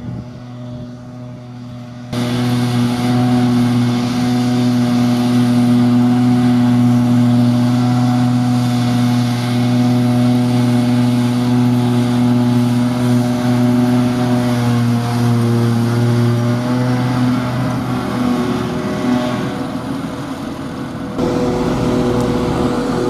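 Heavy farm machinery engine running steadily, a loud, even drone. The sound changes abruptly about two seconds in and again near the end, and the pitch sags slightly about two thirds of the way through.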